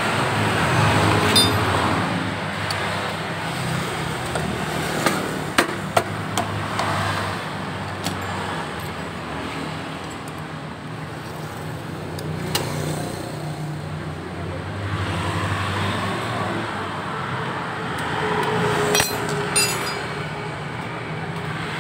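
Steady street traffic hum with a handful of sharp metal clicks and knocks as the CVT cover of a Honda BeAT scooter is fitted back on and fastened by hand tools.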